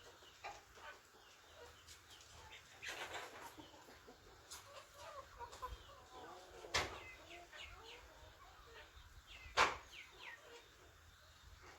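Chickens clucking and calling in short, scattered notes, with two sudden, much louder sharp sounds about seven and nine and a half seconds in.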